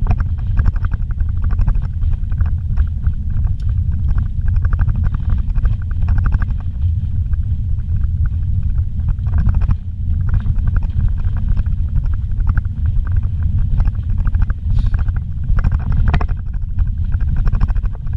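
Steady low rumble heard inside a vehicle driving on a rough dirt road, with constant small rattles and knocks as it jolts over the bumpy surface.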